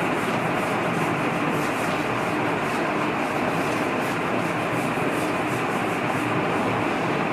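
Marker rubbing across a whiteboard in short irregular strokes, over a steady background hiss.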